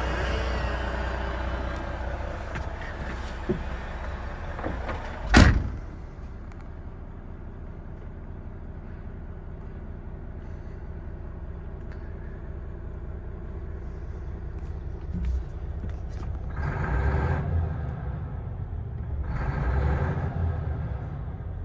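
Volvo FH460 truck's 13-litre six-cylinder diesel idling with a steady low hum, heard from inside the cab. The cab door shuts with a loud thud about five seconds in, and two short swells of louder noise come in the last few seconds.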